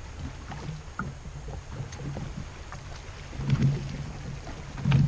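Choppy lake water lapping against a boat hull, with wind on the microphone. Two louder low thumps come about three and a half seconds in and again near the end.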